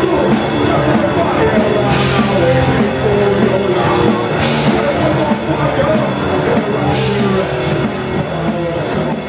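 Rock band playing live in rehearsal: drum kit with cymbal crashes about every two and a half seconds, electric guitar, and vocals into a microphone.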